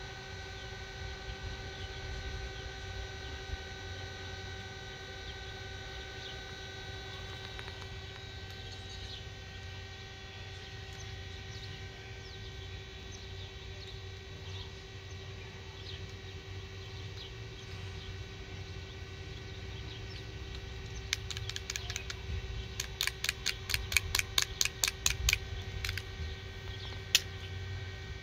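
Fidget cube buttons and switches clicked by fingers: a quick run of sharp clicks about three-quarters of the way through, about six a second at its densest, and one last click near the end, over a steady hum.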